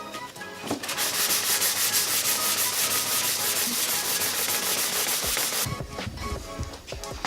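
150-grit sandpaper rubbed quickly back and forth over a quad's plastic body panel, a steady scraping of rapid strokes that stops about a second and a half before the end, followed by a few low knocks.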